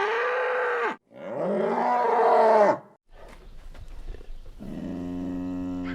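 Cattle mooing: three drawn-out calls. The first two rise and fall in pitch, and the last is long and level.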